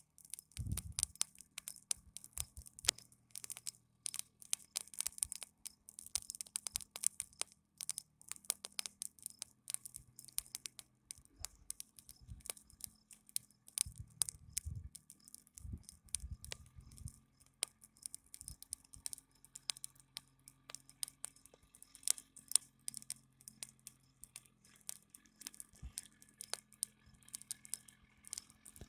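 Dense, irregular crackling and rustling close to the microphone, over a faint low engine drone that shifts in pitch now and then.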